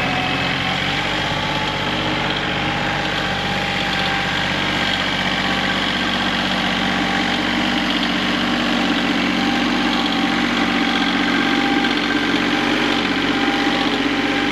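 Engine idling steadily, getting a little louder about halfway through.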